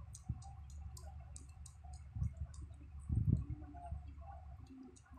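Siamese mother cat licking her newborn kitten clean: a run of quick wet clicks, several a second at first and sparser later, with low rubbing sounds swelling about two and three seconds in.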